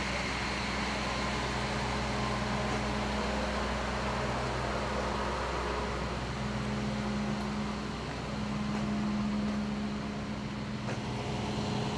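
Steady low hum of an idling engine, a constant drone over a faint hiss.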